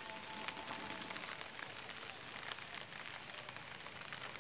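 Light rain pattering, with many small drops ticking irregularly.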